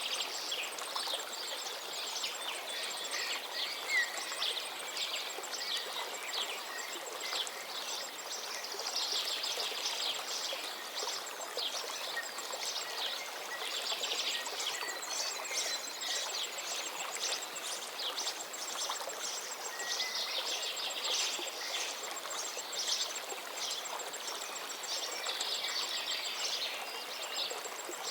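Flowing river rushing steadily, with small birds chirping and twittering in quick runs over it.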